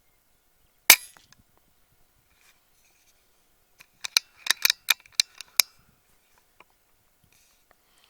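A single sharp shot from a .30 calibre pre-charged air rifle about a second in, followed a few seconds later by a quick run of about eight short clicks and clacks.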